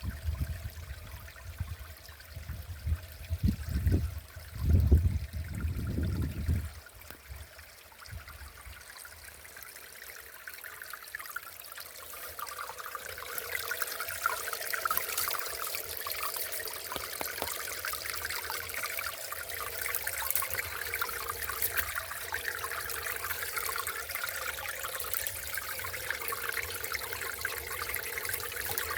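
Small stream of water trickling and running over stones, growing louder about twelve seconds in and then holding steady, typical of snowmelt running in early spring. Low rumbling thumps are heard in the first six seconds.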